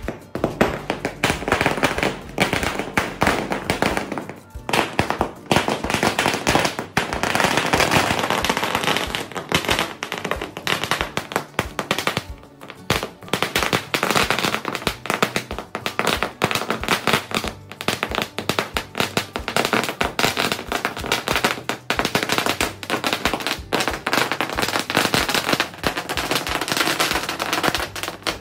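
A 20,000-wala string of garland firecrackers going off in rapid, continuous bangs, with brief lulls about four and twelve seconds in.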